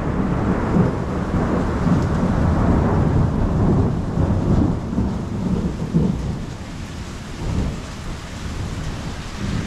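Thunder rumbling in a long low roll over steady rain, dying away in the second half.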